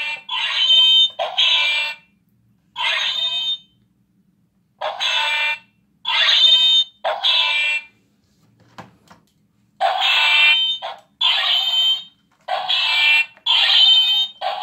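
Electronic sound effect from a battery-powered light-up toy sword as it is waved: about a dozen short electronic bursts, each under a second, in irregular bunches with gaps between them.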